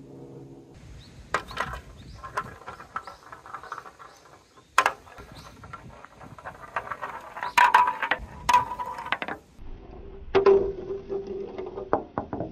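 Balls rolling and rattling down a plastic spiral marble-run track, with sharp knocks as they strike the plastic and a steady hum for about two seconds near the end. Right at the end a ball drops onto the bench slats and bounces in quick ticks.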